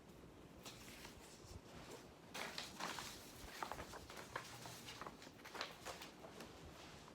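Faint scattered clicks and brief rubbing as a metal Zippo lighter case is handled and turned over in the hands.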